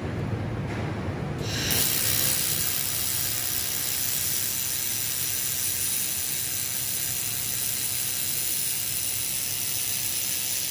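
1500 W handheld fiber laser welder with wire feed striking a weld about a second and a half in, then hissing steadily as it runs along a steel corner seam.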